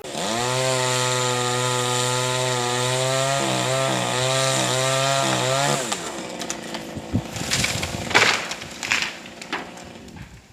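Two-stroke chainsaw running at high revs, its pitch wavering about halfway through before it drops off near the middle. It is followed by a few seconds of scattered sharp cracks and knocks.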